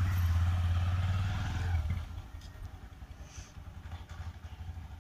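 Motorcycle engine running as the bike pulls away, its low, pulsing rumble dropping off sharply about two seconds in and then carrying on faintly as it rides into the distance.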